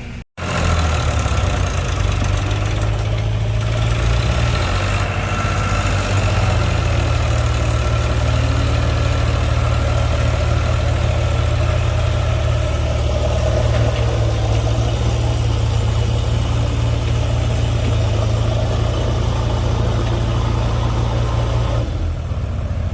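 Heavy diesel machinery engine running steadily at an even idle-to-working speed, a constant low engine note with no revving.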